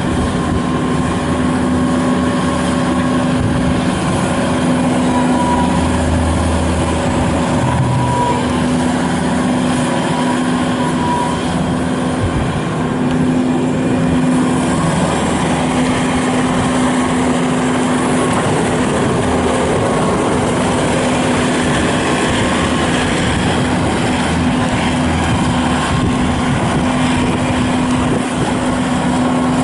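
2016 Bobcat S750 skid steer loader's diesel engine running at a steady speed.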